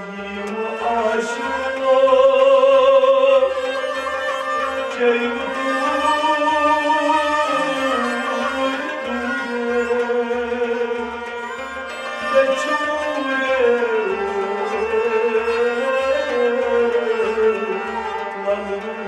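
Harmonium playing a Kashmiri devotional kalam, with a man's voice drawing out a wavering melody over it and a steady low beat about twice a second.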